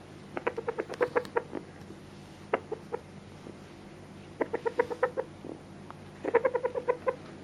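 Sebright bantam cockerel clucking: three quick runs of short, even clucks, with a couple of single clucks between them.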